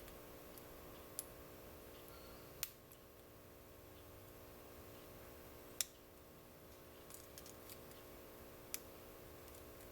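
Lock pick and tension wrench clicking faintly against the pins of a brass American U.S. government-issue padlock: about four sharp clicks several seconds apart, a few fainter ticks between them, over a steady hum.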